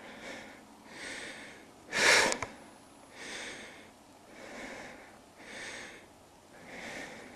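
A person breathing close to the microphone: soft, regular breaths about once a second, with one much louder sniff or blow about two seconds in.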